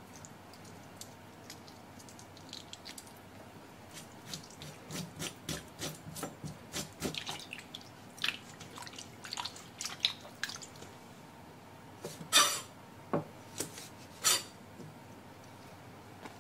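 Squid tentacles handled with small wet clicks, then rinsed by hand in a stainless steel bowl of cold water: repeated sloshing and splashing, with a few louder splashes or knocks near the end.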